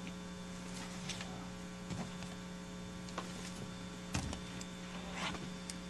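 Steady low electrical mains hum on the chamber's microphone feed, with a few faint scattered knocks and rustles.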